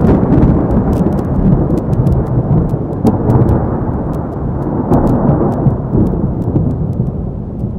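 Thunderstorm sound effect: deep rumbling thunder over rain, with faint crackles, slowly fading near the end.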